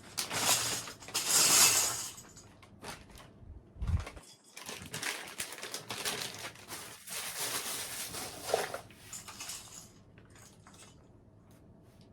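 Plastic keycaps being handled: rustling and clattering for the first couple of seconds, then scattered light clicks that grow fainter and sparser near the end.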